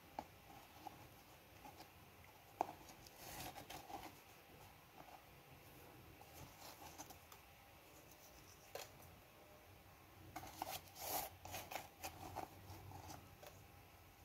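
Faint handling noises of small oil pump parts being cleaned: scattered light clicks and two short spells of scraping and rustling, the louder one about ten seconds in.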